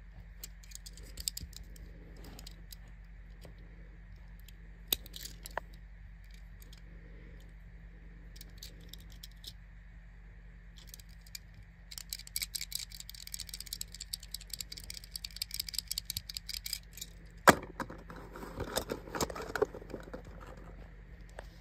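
Handling of a small diecast Tomica toy car: scattered light clicks, then several seconds of dense light rattling and ticking. A sharp click about 17 seconds in is the loudest moment, followed by rustling and clicks as the car is set on its cardboard box.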